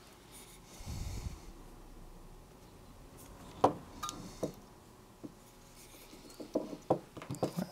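Small tools and a metal scope body handled on a wooden workbench: a soft rumble about a second in, then scattered sharp clicks and knocks. The loudest knock comes about halfway through, and a quick cluster of knocks follows near the end.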